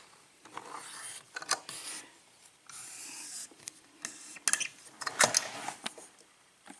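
Small metal clicks and knocks with a short stretch of scraping, as a lock is handled and clamped into a vise.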